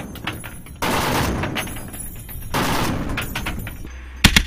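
M2 Browning .50 calibre heavy machine gun firing bursts of automatic fire. Two longer bursts come about one and two and a half seconds in, and a couple of sharp, loud reports come near the end.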